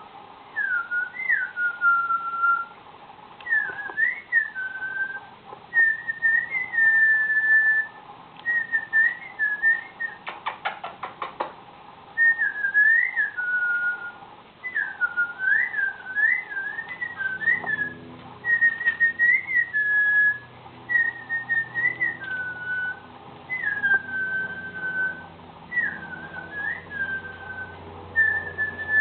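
Pet cockatiel whistling a repeated song of short up-swooping notes and held whistles, phrase after phrase, with a brief run of rapid clicks about ten seconds in.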